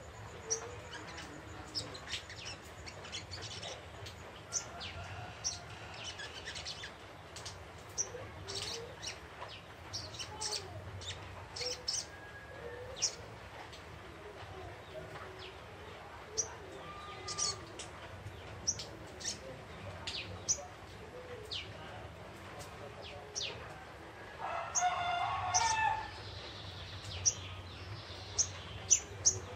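Young wild spiderhunter (sogok ontong) chirping: many short, sharp, high chirps at irregular intervals. A louder, drawn-out call stands out near the end.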